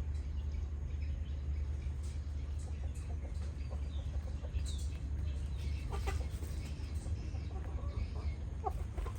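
Chickens clucking in short, scattered calls over a steady low rumble.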